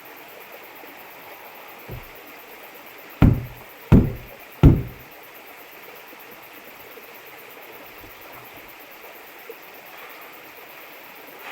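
Three heavy thumps in quick succession, about two-thirds of a second apart, each ringing briefly, over a steady hiss.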